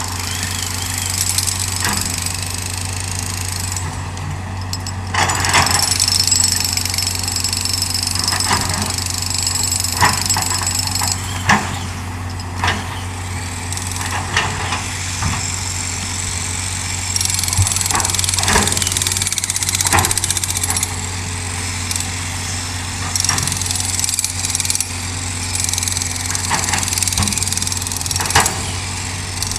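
Hydraulic excavator's diesel engine running steadily under work, with irregular clanks and knocks through it.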